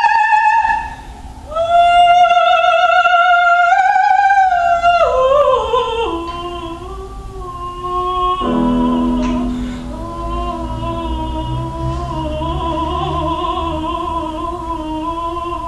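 Female opera singer singing with vibrato to piano accompaniment: a high held note, a short breath, another long note, then a descending phrase that settles into long lower held notes, with a piano chord coming in about halfway.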